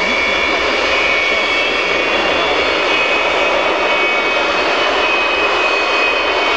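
Antonov An-124's four Progress D-18T turbofan engines running: a loud, steady roar with a high whine held over it.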